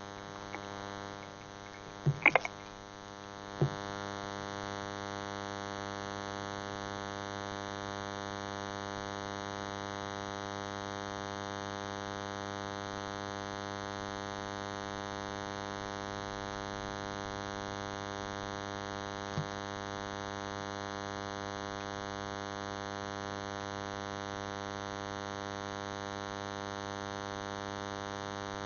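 Steady electrical buzz on a telephone line while the call is being transferred, after a few clicks in the first four seconds.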